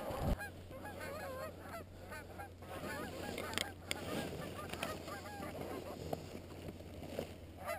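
A flock of geese honking, many overlapping calls all through, with a brief sharp click about three and a half seconds in.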